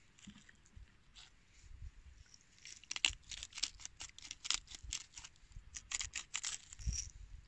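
Dry, charred corn husk crackling and tearing as it is peeled off a humita toasted on embers, in a quick, irregular run of crisp crackles starting about three seconds in.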